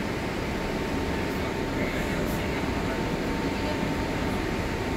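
New York City subway train running, heard from inside the car: a steady rumble with a faint steady whine over it.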